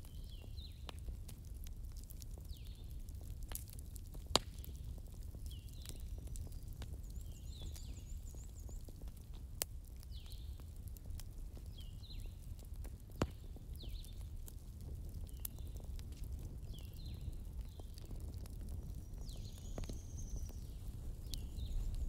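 Wood fire burning with a steady low rumble and frequent small crackles, and three sharp, louder pops from the burning logs. A short, high falling chirp repeats about once a second through it.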